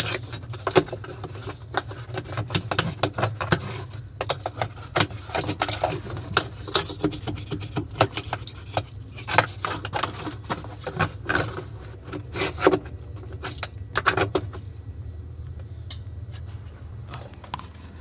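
Stiff brush scrubbing the wet, grimy inside of an LG washing-machine tub around its centre hub: quick, irregular scraping strokes that stop about fifteen seconds in.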